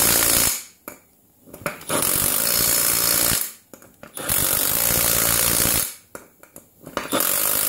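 A Milwaukee Fuel cordless impact gun hammering on wheel-hub nuts in four bursts: the first stops about half a second in, then three more of a second and a half to two seconds each, with short pauses between.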